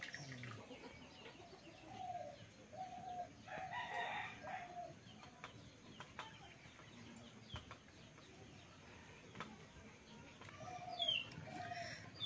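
Chickens clucking faintly in short, repeated calls, in two spells, with a few high bird chirps near the end.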